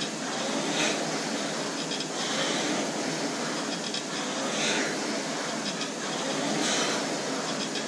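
Concept2 rowing machine's air-resistance flywheel whirring steadily, surging in a whoosh with each stroke about every two seconds.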